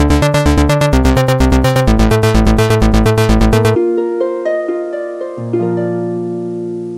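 Background music: plucked melodic notes over a quick, steady beat with heavy bass. About halfway through, the beat drops out, leaving a few held plucked notes that ring and fade.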